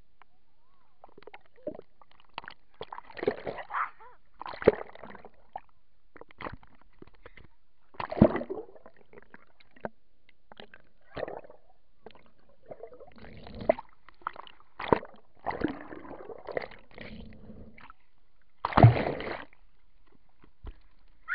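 Lake water sloshing and gurgling around an underwater camera, heard muffled in irregular bursts with knocks against the housing. The loudest splash comes near the end, as the camera breaks the surface.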